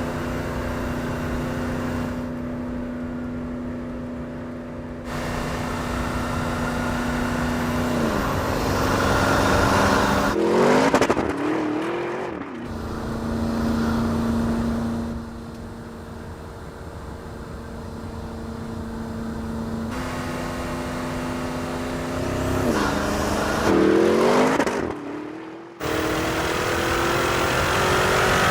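Porsche Cayenne Turbo GT's twin-turbo 4.0-litre V8 running at idle through its sport exhaust, revved up and let fall back a few times. The note changes abruptly several times where separate recordings are joined.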